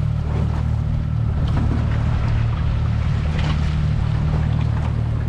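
Small boat's outboard motor running steadily underway, with wind and water noise over it.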